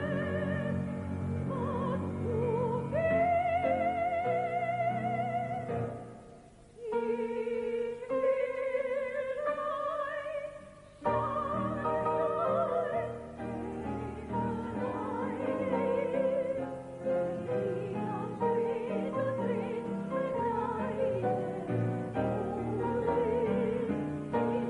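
Operatic singing with a wide vibrato over orchestral accompaniment, held notes swelling and falling, with two brief lulls about six and eleven seconds in.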